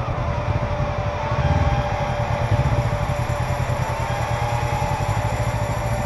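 Honda CB500X parallel-twin engine running as the motorcycle rides along, getting briefly louder about one and a half seconds in.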